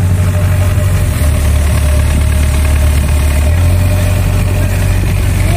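Diesel engine of an E65 mini crawler excavator running as the machine works, a steady low drone whose note shifts about a second in and shifts back a couple of seconds later.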